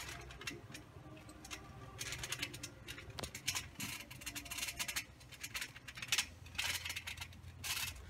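Faint, irregular rustling and scraping noises, growing busier about two seconds in, over a low steady hum.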